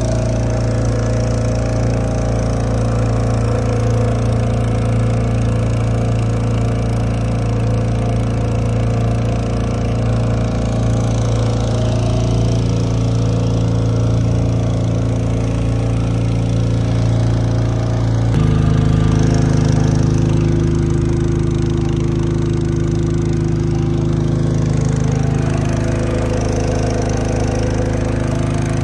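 Motorboat engine running steadily, with its note changing abruptly about eighteen seconds in.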